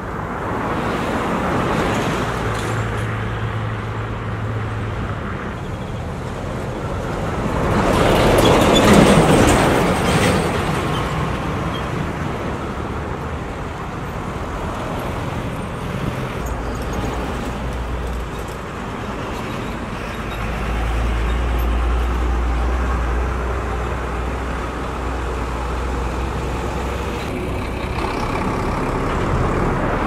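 Road-construction site noise: diesel engines of pneumatic-tyred road rollers and other vehicles running, with a louder vehicle passing close that swells and fades about nine seconds in. A deep steady engine drone sets in during the second half.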